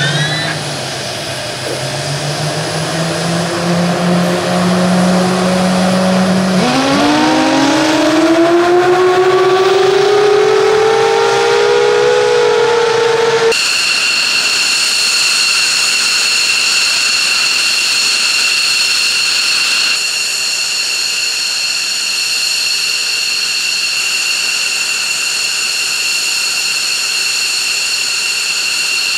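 F-15J Eagle's turbofan engines spooling up at start, a rising whine with a second rising whine joining about seven seconds in. About halfway through it changes abruptly to a steady high-pitched turbine whine at idle.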